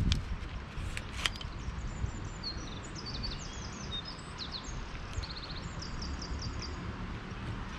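A songbird singing a run of quick, high, falling chirps from about a second and a half in until near the end, over steady outdoor background noise. A couple of sharp clicks about a second in come from handling the telescopic fishing rod.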